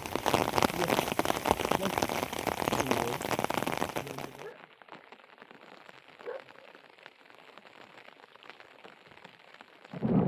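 Heavy rain pattering hard and densely, which cuts off abruptly about four and a half seconds in to a much quieter, softer patter. A short loud sound comes at the very end.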